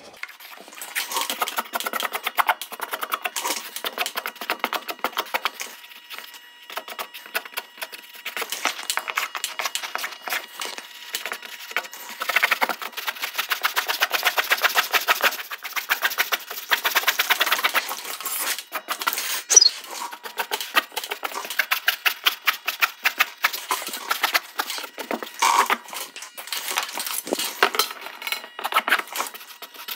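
Felt-tip marker scratching and squeaking across pressed paper in quick, repeated back-and-forth strokes as lines are drawn. The strokes come fastest and densest in a run about halfway through.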